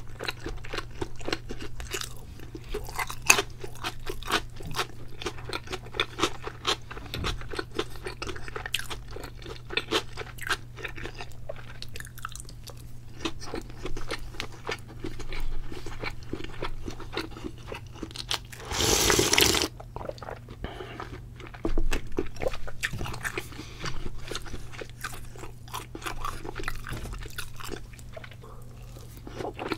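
Close-miked chewing and crunching of fried shrimp tempura batter, with many small crisp crunches throughout and one louder, second-long crunch about two-thirds of the way through.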